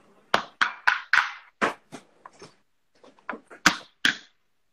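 Whole black peppercorns being smashed with hard knocks on a kitchen surface. About half a dozen quick strikes come in the first two seconds, then there is a pause, then a few more, the loudest near the end.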